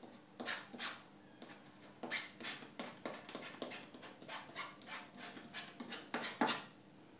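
Palette knife scraping and dabbing oil paint onto a stretched canvas in a run of short, quick, irregular strokes, the loudest near the end.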